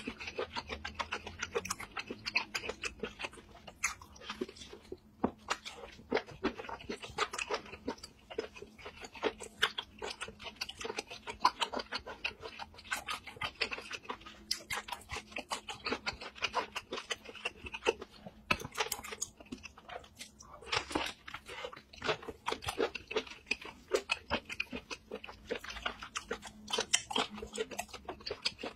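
A person chewing seafood at close range, with a dense, irregular run of crunches and clicks.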